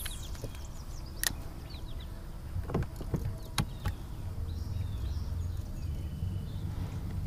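A low steady hum that grows stronger about halfway through, with a few sharp clicks as a spinning reel is worked to retrieve a bait from a small fishing boat.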